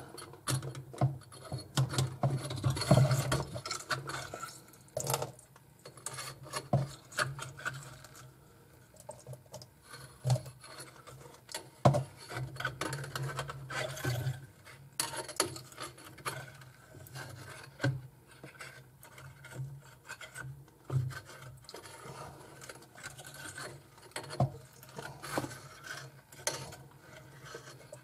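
Drain snake cable scraping and rubbing inside an old wall drain pipe, with irregular rasps and sharp clicks as it is worked into the clog of hair and black gunk.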